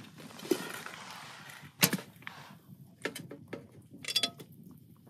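Frying pan of sausage pieces, held by a clip-on gripper handle, set down on a small titanium wood stove: a sharp metal clank about two seconds in, then several lighter clicks and a ringing metallic clink.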